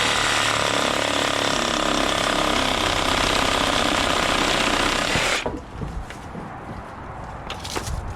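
Chainsaw running and cutting through tree limbs, cutting off abruptly about five seconds in, followed by a few light clicks.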